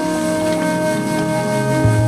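Calm, soft background music with long held notes; a deeper note comes in near the end.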